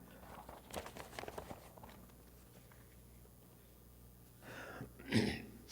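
Quiet room with faint rustling and light taps, then a brief, louder rustle-like sound near the end.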